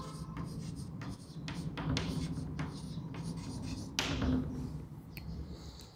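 Chalk writing on a blackboard: a run of short scratches and taps as a word is written out, over a low steady hum.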